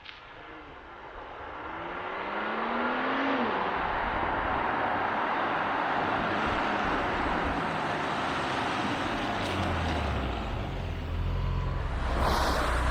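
Porsche Macan Turbo's twin-turbo V6 getting louder, its note rising in pitch over the first three seconds. A steady rushing noise follows, and a deeper engine note comes in strongly near the end.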